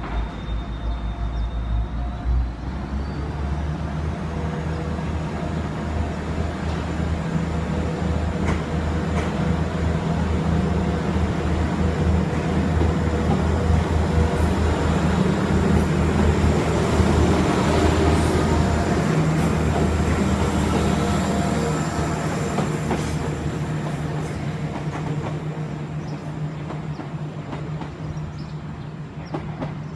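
Class 175 diesel multiple unit's underfloor diesel engines running under power, with wheel clicks on the rails. The engine note steps up about two seconds in, and the sound builds to its loudest about halfway through before easing off.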